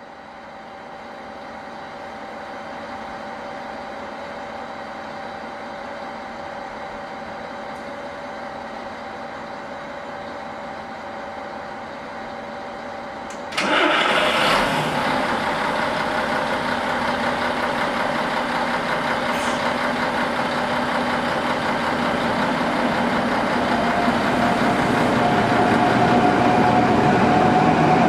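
V100 diesel-hydraulic locomotive's engine running as the locomotive approaches, growing steadily louder as it nears. About halfway through the sound steps up suddenly.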